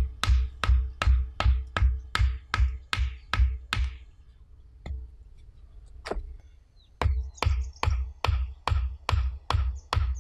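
A hatchet pounding a wooden stake into the ground: a steady run of sharp, thudding strikes about two a second, which stops for a few seconds midway and then starts again.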